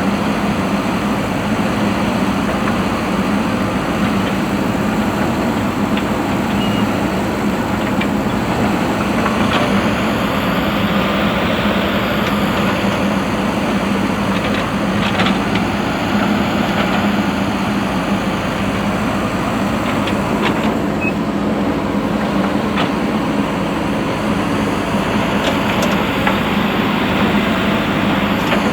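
Diesel engine of a JCB 3DX backhoe loader running steadily under work, with a handful of brief knocks from the machine.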